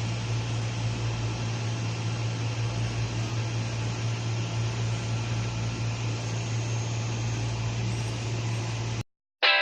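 Steady whir of a running 3D printer's fans, an even hiss over a constant low hum. Near the end it cuts off abruptly and distorted electric-guitar music starts.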